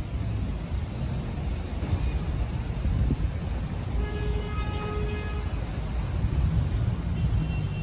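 Steady low rumble of city traffic carrying up over the rooftops, with a brief steady pitched tone sounding about four seconds in.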